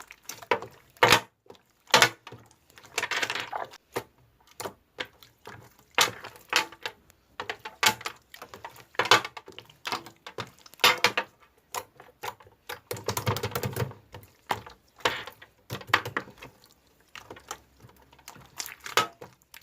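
Slime being squished and poked by hand, giving irregular sharp clicking pops and short squelches as trapped air bursts, with brief pauses between presses.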